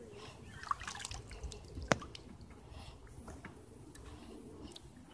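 Faint water sounds at a kayak's hull: quiet drips and lapping, with scattered small ticks and one sharper tick about two seconds in.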